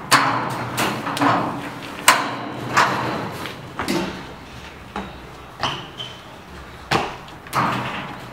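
Steel scaffolding tubes clanking as a person swings and catches from bar to bar: about nine sharp metallic impacts at uneven intervals, each trailing off in an echo in a large covered hall, with a brief ringing tone around six seconds in.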